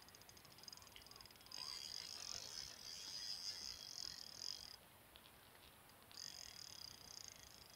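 Spinning reel ticking rapidly and evenly as line works against a large hooked catfish on a bent rod. The ticking grows stronger about a second and a half in, stops for about a second past the middle, then resumes.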